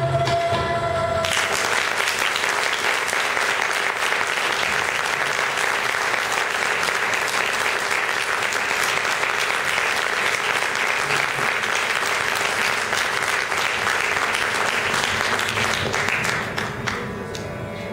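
Bansuri flutes hold a final note over tabla that stops about a second in, and the audience breaks into steady applause that dies away near the end.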